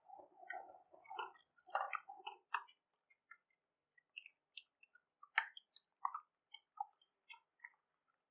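A cornflour-and-milk mixture poured from a small bowl into a steel pan of milk, giving soft wet splashing sounds for the first two or three seconds. Then a silicone spatula stirs the warming, thickening milk in the pan, with scattered light clicks and squelches.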